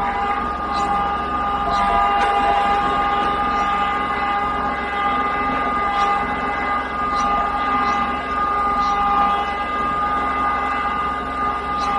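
Small tractor's engine running steadily under way, with a steady high whine over it.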